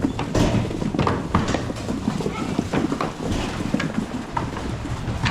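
Many goat and sheep hooves clattering in a quick, irregular patter as the herd trots in.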